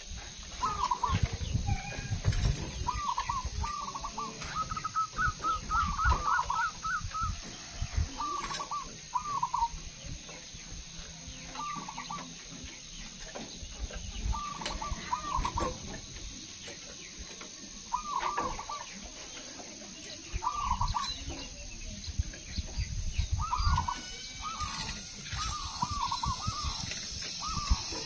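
Caged zebra doves (perkutut) singing: short phrases of quick cooing notes repeated every few seconds, with a longer run of rapid notes about five seconds in and a busier burst of calls near the end. A low rumbling noise comes and goes underneath.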